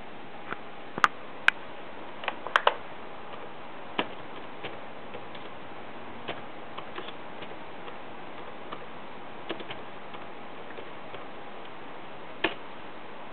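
Scattered clicks of laptop keyboard keys being pressed, a handful close together in the first three seconds and one more near the end, over a steady background hiss.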